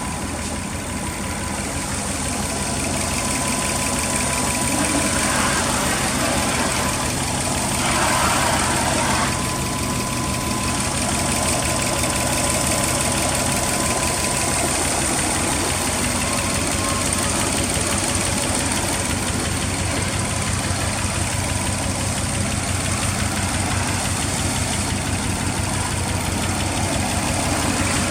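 Subaru Impreza GDB's turbocharged flat-four engine idling steadily through a Fujitsubo aftermarket muffler, with a brief swell about eight seconds in.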